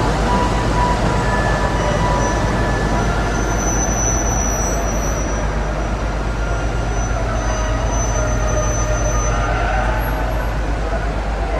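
Steady low drone of a ship's engines and machinery, an even rumble with a constant hum underneath.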